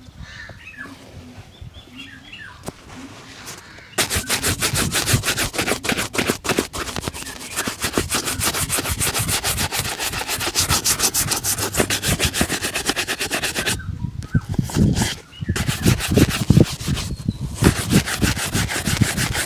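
Shoe shining: rapid back-and-forth rubbing strokes on a leather shoe, many strokes a second, starting about four seconds in after a quieter stretch. The rubbing pauses briefly with a few soft knocks near the three-quarter mark, then carries on.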